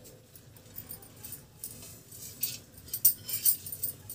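Tempering spices frying in hot oil in a steel kadai: irregular high crackling and popping that grows thicker in the second half, perhaps mixed with a clink of the steel plate.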